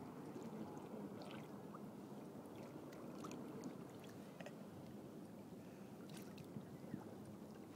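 Sea water lapping and sloshing against a kayak's hull, with scattered small splashes and drips.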